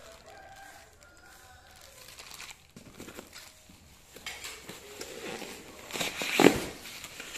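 A parcel wrapped in styrofoam and packing tape being handled: crinkling and scraping that builds over the last few seconds, with one loud sharp knock near the end.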